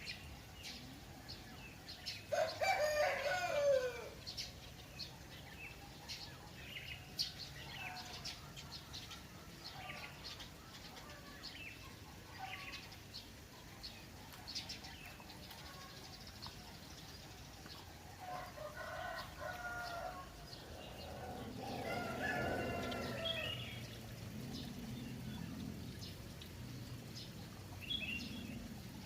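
Roosters crowing over steady chirping of small birds. One loud crow comes about two seconds in and falls in pitch at its end, and two fainter crows follow later.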